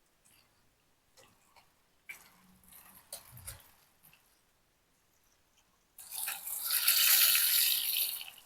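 Hot frying oil sizzling loudly for about two seconds as fried bass is lifted out of the pan, after a few light clinks of a cooking utensil.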